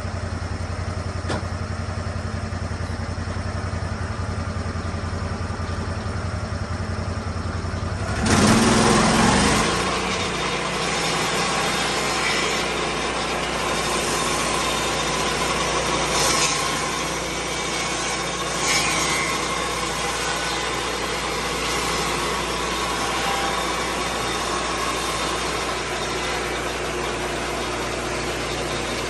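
Lucas Mill 10-30 swing-blade sawmill: the engine idles steadily, then about eight seconds in it revs up sharply and the circular blade cuts into a white pine log, giving a steady, loud sawing.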